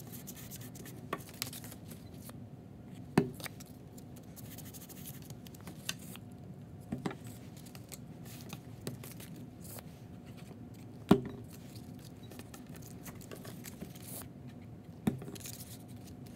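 Hands pressing and smoothing glued painted-paper feathers flat on a tabletop: soft paper rubbing and rustling. About four sharp knocks stand out, the loudest about three seconds and about eleven seconds in.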